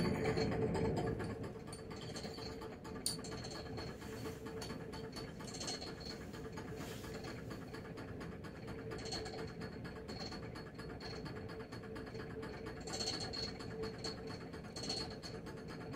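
Steady low hum of running lab equipment over faint room noise, with a louder handling rumble in the first second and a single sharp click about three seconds in.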